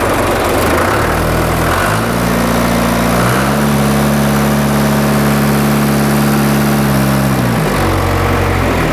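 John Deere 2440's four-cylinder diesel engine running, just fitted with new injectors. It is throttled up in three steps in the first few seconds and held at a steady higher speed. Near the end it is brought back down toward idle.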